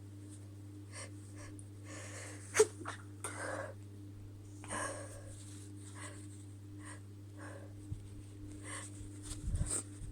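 A woman's hitching, breathy catches of breath as a sneeze builds, several over a few seconds. One very short, sharp burst comes about two and a half seconds in, and a few low thumps come near the end.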